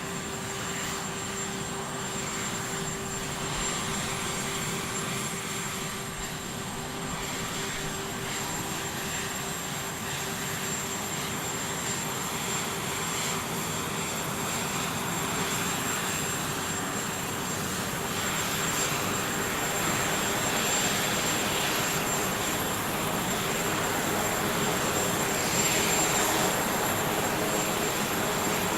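Aircraft engines running: a steady rushing noise with a held whine, growing slowly louder.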